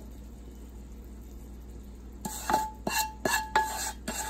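Wooden spoon scraping and knocking inside a frying pan to empty it into a stainless stockpot: after a quiet first half, a quick string of sharp knocks, about three a second, each with a short metallic ring.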